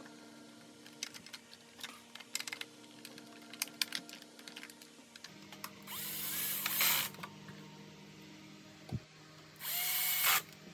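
Electric screwdriver running in two short bursts of about a second each, driving screws, after a run of small clicks from plastic parts and screws being handled.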